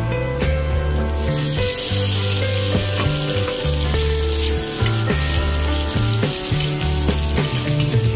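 Diced meat hits a hot wok of chilies and onions and sizzles loudly, the frying hiss starting about a second in and running on steadily. Background music with a steady bass line plays under it.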